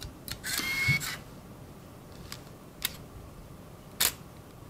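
Canon EOS autofocus film SLR's built-in motor whirring for about half a second as it winds the film on, then a few sharp clicks of the shutter and mirror, the last one loudest.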